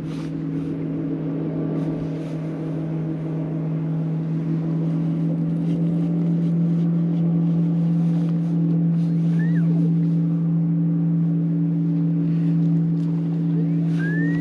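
Bass boat's bow-mounted electric trolling motor running with a steady low hum. A bird chirps briefly twice, about nine and a half seconds in and near the end.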